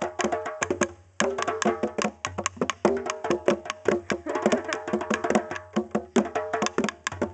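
Music playing, rapid sharp percussive clicks over held pitched notes, with a brief gap about a second in.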